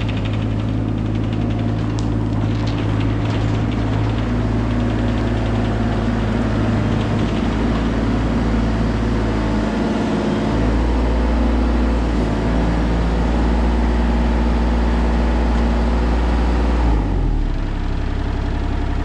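Bobcat excavator engine running steadily. Its pitch shifts about ten seconds in, and the higher noise drops away near the end.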